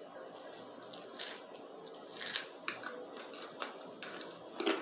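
Close-up eating sounds: spaghetti being slurped and chewed, with small clicks and scrapes of a fork against the plate, in a string of short, irregular bursts.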